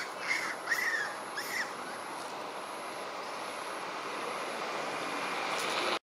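Infant macaque giving three short, high squeaks that rise and fall, in the first couple of seconds, followed by a steady hiss of background ambience.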